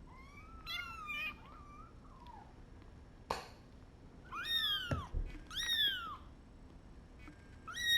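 Tiny orphaned kitten mewing: four high-pitched cries, each rising then falling, the first wavering and the middle two close together. A sharp click comes a few seconds in and a soft thump about five seconds in.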